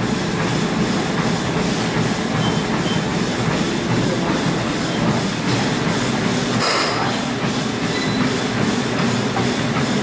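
Treadmill running at speed: the motor and belt hum with the steady, regular slap of running shoes on the deck.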